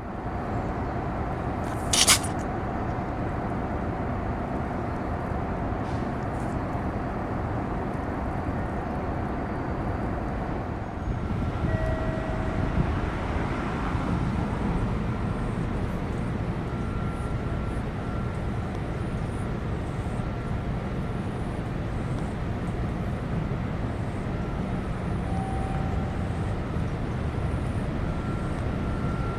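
Steady outdoor background hum of distant traffic and machinery, with one brief sharp sound about two seconds in.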